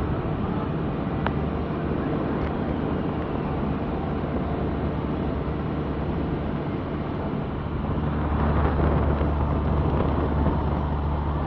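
Vehicle engine and road noise while driving, a steady low drone that grows louder about eight seconds in.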